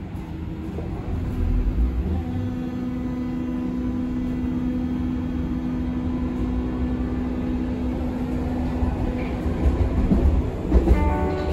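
Berlin U-Bahn F90 train with three-phase AC drive running on the track, heard from on board: a steady traction hum over wheel and rail rumble, growing louder about a second in.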